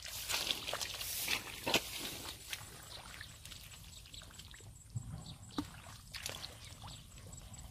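Bare feet and hands moving in shallow muddy water: irregular splashing and squelching, busiest in the first two seconds and sparser after.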